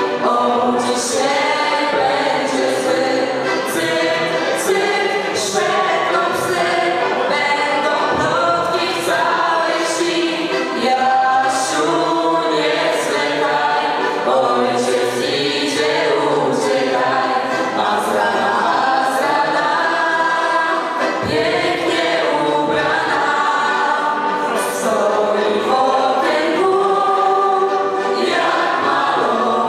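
A small group of young voices singing a folk song together, accompanied by a piano accordion.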